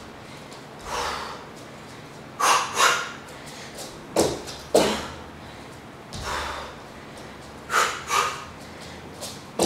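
Short, forceful exhalations from a woman working out, several in quick pairs that match her double hook punches, over a low steady room hum.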